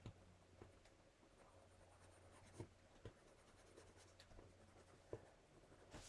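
Faint scratching of a colored pencil shading on vinyl sticker paper, with a few soft taps of the pencil.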